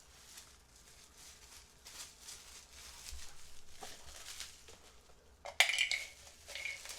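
Boxed Funko Pop vinyl figures and their packaging being handled: scattered light clicks and rustles, with one sharp clink a little over five seconds in and a smaller one about a second later.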